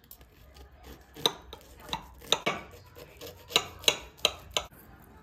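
Metal knife and fork tapping and scraping against a plate while cutting through baked food, a string of sharp clinks starting about a second in.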